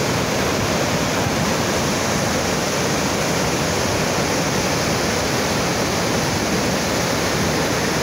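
Upper Düden Waterfall pouring steadily into its pool and the fast river below: a constant, even rush of falling water.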